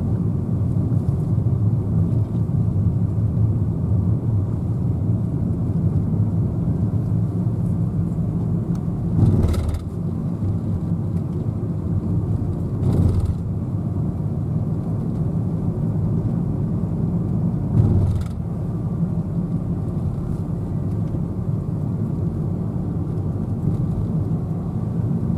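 Steady low engine and tyre drone heard inside a moving car's cabin, with three brief louder knocks about nine, thirteen and eighteen seconds in.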